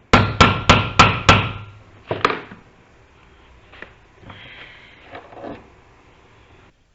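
Five quick hammer blows on wood, about three a second, followed by one more knock and then quieter knocks and a short scrape of handling.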